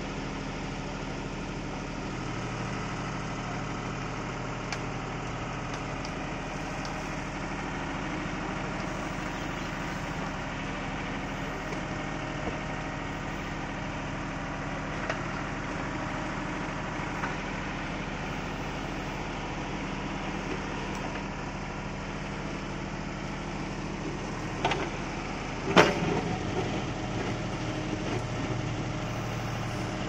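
Tractor engine running steadily. Near the end come two sharp knocks about a second apart, the second louder.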